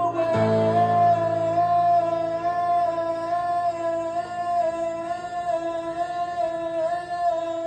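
Male singer holding one long, high sung note with a slight vibrato, over grand piano chords struck just after the start and left to ring.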